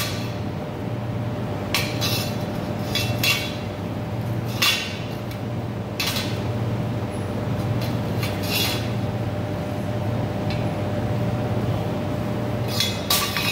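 Steel tube pieces clinking and knocking against a steel welding table as they are handled and set down, in irregular strokes over a steady low machine hum.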